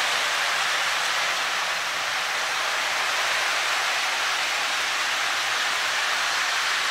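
A steady, even hiss that does not change.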